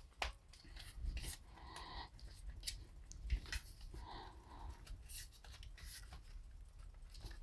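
Road bike tyre bead being pushed onto a wheel rim by hand: rubber rubbing and squeaking against the rim, with scattered clicks and knocks, the bead going on easily.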